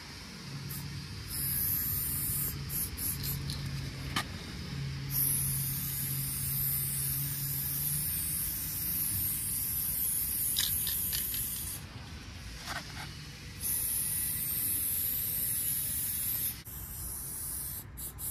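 Aerosol spray paint can spraying onto a wall in several long bursts of hiss, the longest about seven seconds, with short pauses between.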